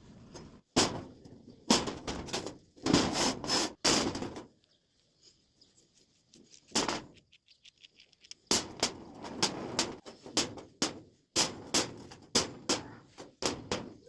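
Steel parts knocking and clanking as they are handled in metalwork, a run of sharp irregular strikes, some in quick clusters, with a pause of a few seconds midway.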